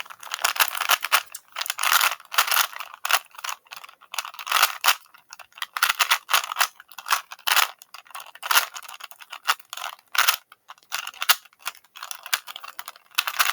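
Plastic 3x3 Rubik's cube being speed-solved: rapid clicking and clacking as its layers are turned, in quick flurries broken by short pauses.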